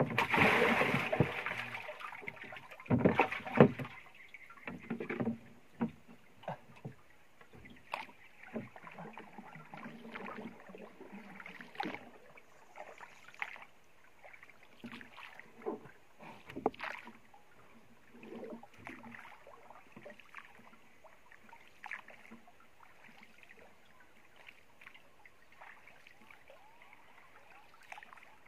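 Water splashing beside a wooden boat as something is pulled in over the bow, then a few sharp knocks on the wooden boat a few seconds in. After that, scattered paddle strokes and small splashes as the boat is paddled, thinning out toward the end.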